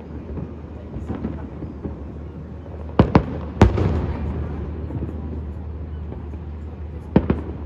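Aerial fireworks shells bursting: a cluster of three sharp bangs about three seconds in, followed by a rumbling tail, then two or three more bangs near the end, over a steady low hum.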